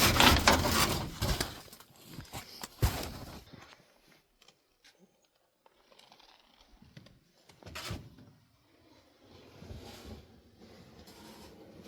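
Crunching and rustling handling noise that dies away within about two seconds, followed by a few scattered knocks and clunks, the sharpest about eight seconds in.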